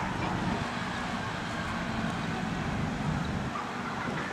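Narrow-gauge diesel multiple-unit train approaching, its engines running with a steady low drone.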